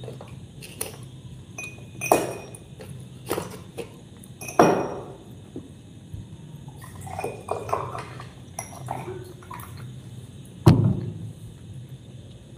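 Tableware being handled during a meal: a glass and a plate clinking and knocking. There are a handful of separate sharp clinks, the loudest near the end, with softer clatter in between.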